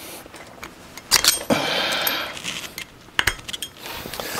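Metal hand tools and parts clinking as they are handled: sharp clinks about a second in, a second or so of metallic rattle right after, and another clink past three seconds.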